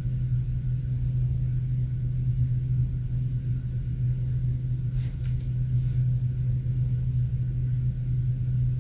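A steady low hum runs under the recording, with a few faint short clicks about five seconds in.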